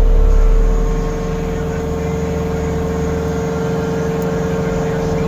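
John Deere 325 skid steer's diesel engine running a Jenkins hydraulic stump grinder, with a steady high tone over the engine. The deep low rumble drops about a second in, and the sound then holds steady.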